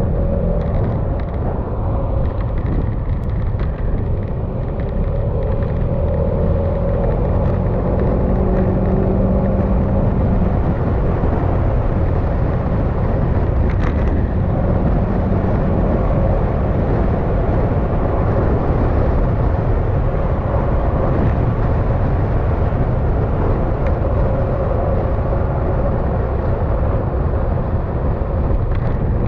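Yamaha XMAX scooter's single-cylinder engine running at a steady cruise, heard from the rider's seat under wind and road noise.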